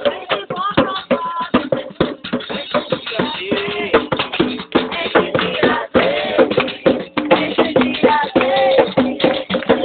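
A band playing a song: a steady percussion rhythm under singing voices.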